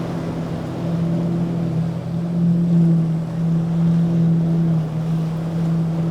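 Motorboat engines running at a steady pitch, a low droning hum that swells and eases a little, over wind and water wash.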